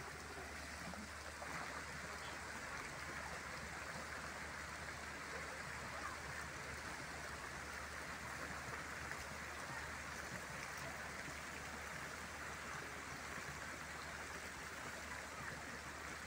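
Steady rush and splash of a fountain: rows of water jets falling into a shallow paved pool.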